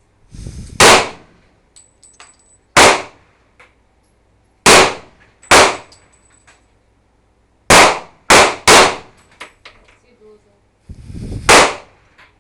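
Gunshots on a shooting range: eight sharp, loud reports at irregular intervals, three of them in quick succession about two-thirds of the way through, with fainter shots between.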